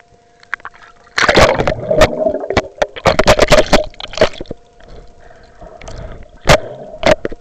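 Water splashing and sloshing around a camera held in and just under the water: heavy churning splashes from about a second in until past the halfway point, then two sharp splashes near the end.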